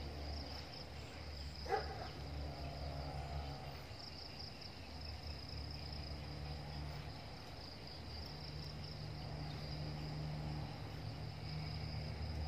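A steady chorus of insects on a riverbank at dusk: an unbroken high buzz over a low hum. A brief rising call comes about two seconds in.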